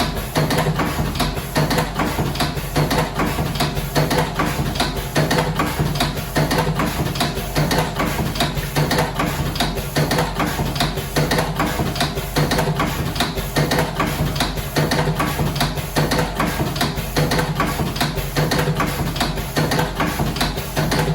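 Slim-cigarette rolling machine running, a steady hum with rapid, repeated mechanical clicking.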